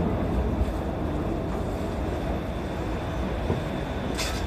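Shonan Monorail suspended rubber-tyred car running and slowing into a station: a steady rumble of the running gear with a faint high whine, easing slightly as it slows. A brief hiss about four seconds in.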